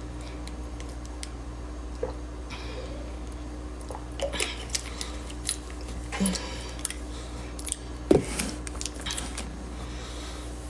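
Scattered clicks, short rustles and light knocks of small objects being handled, with one louder knock about eight seconds in, over a steady low hum.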